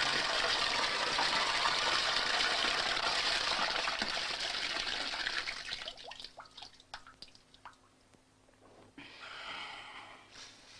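Water gushing into a glass tank, filling it; the rush fades out about five to six seconds in, leaving scattered drips and small splashes over a faint steady hum, with a softer rush of water again near the end.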